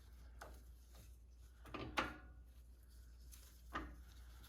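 A few short metallic clicks and scrapes as parts of a Spartan ratcheting locker are worked and slid out of a Chrysler 8.25 differential case, with the sharpest knock about two seconds in.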